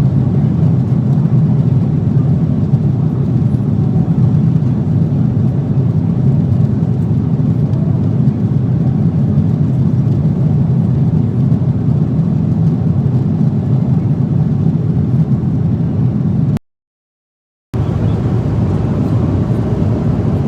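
Steady airliner cabin noise: the constant low rumble and hiss of jet engines and airflow heard from inside the cabin in flight. It cuts out completely for about a second near the end, then resumes unchanged.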